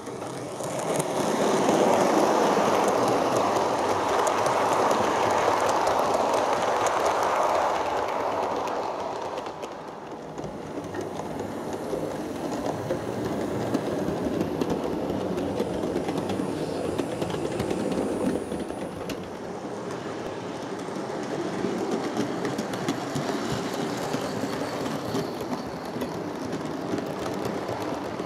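Model trains running on a model railway layout: electric motor hum and wheels rattling over the track, with a fast run of fine clicks. Loudest for the first several seconds, then dropping a little about ten seconds in and carrying on steadily.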